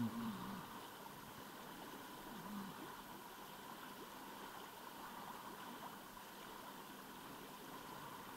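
Faint, steady flowing of river current. A short low-pitched sound comes right at the start and another about two and a half seconds in.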